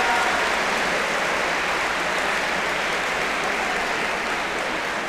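Large indoor crowd applauding, the clapping slowly dying down.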